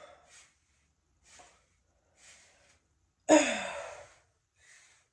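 A woman breathing, with a few faint breaths, then one loud sigh about three seconds in that starts suddenly and falls in pitch as it dies away.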